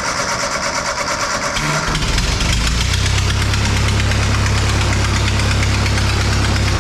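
Ford 8N tractor's four-cylinder flathead engine running loudly, rough for the first couple of seconds, then settling into a steady low idle. It has an exhaust leak at a pipe that is about to fall off.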